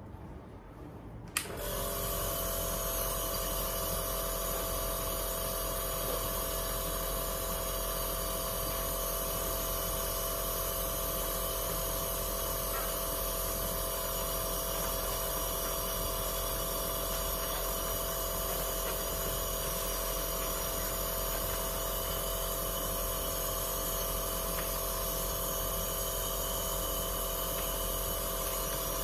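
Home compressor nebulizer switched on with a click about a second and a half in, then running steadily: an even motor hum with a hiss from the mask.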